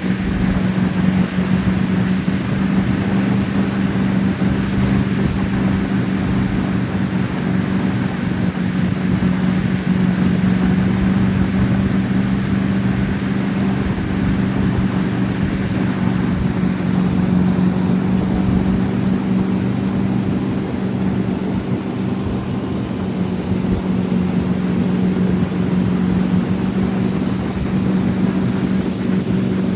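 Tow boat's engine running steadily under way: a constant low hum with water and wind noise over it.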